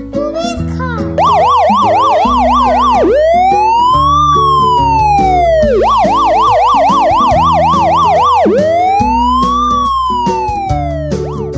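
Electronic police siren, starting about a second in and switching twice between a fast yelp of about four rises a second and a slow wail that rises and falls over a couple of seconds, over background music.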